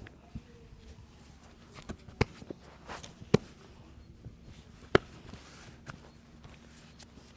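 Hand massage of the head and back: a series of sharp, irregular snaps and slaps, the three loudest about two, three and a third, and five seconds in, with softer ones between.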